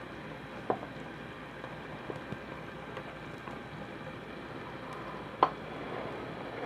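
Sweet-and-sour fish hot pot broth boiling steadily in its pot on the flame, a continuous bubbling hiss. Two sharp clicks cut through it, one under a second in and a louder one about five seconds in.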